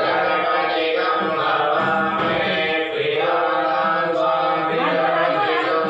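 Hindu devotional chanting: voices reciting a mantra in a continuous, steady melodic line.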